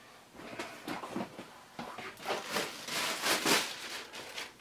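Fabric rustling, then a clear plastic bag crinkling several times as a fleece item is pulled out of it, loudest from about two to three and a half seconds in.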